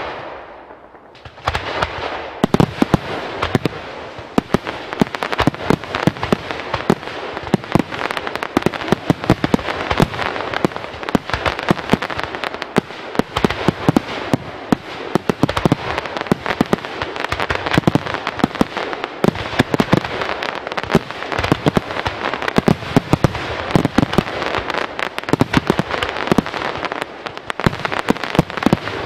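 Fireworks display: a bang fades away, then about a second in a dense barrage begins, with rapid sharp bangs over continuous crackling.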